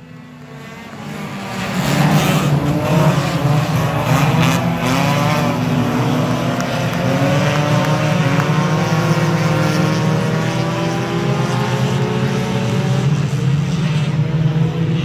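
Several stock cars racing on a dirt oval, their engines running hard at high revs. The sound builds over the first two seconds as the pack comes by, then holds as a steady engine drone whose pitch wavers as the drivers work the throttle.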